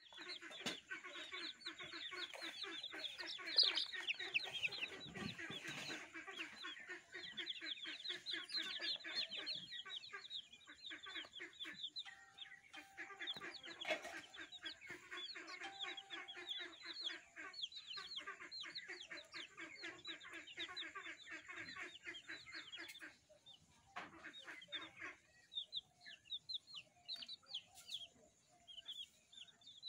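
Many baby chicks peeping in a dense chorus of rapid, high, short calls. After about 23 seconds it thins out to scattered peeps.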